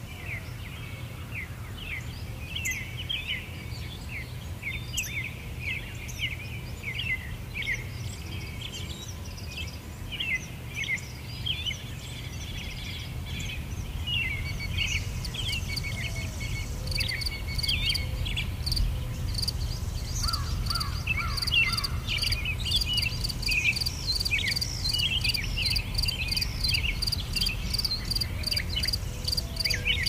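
Nature ambience of many small birds chirping in short, quick calls, joined about halfway through by insects trilling in a steady, rapid pulsing that grows louder toward the end.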